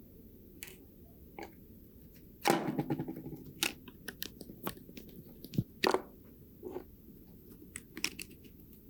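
Small hard parts of a diecast model car being handled and worked on: scattered sharp clicks and taps, with a short ringing clatter about two and a half seconds in.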